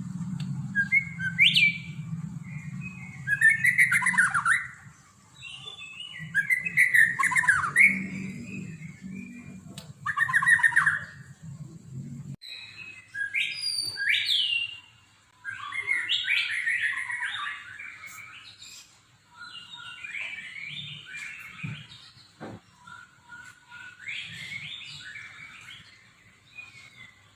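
White-rumped shama singing a long, varied song of short, quick warbling and sliding phrases, the mixed imitated 'fill' repertoire kept songbirds are trained on. A low hum underneath stops about twelve seconds in.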